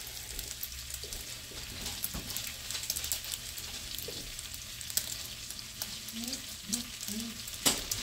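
Melted butter with herbs sizzling and crackling in a frying pan, with a sharp knock near the end.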